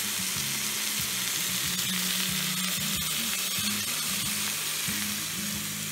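Chunks of meat and sliced onions sizzling steadily in a hot cast iron pan.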